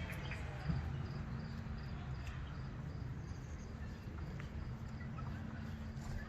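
Outdoor ambience: a steady low rumble and hum with a faint high chirp repeating evenly, like an insect or a small bird.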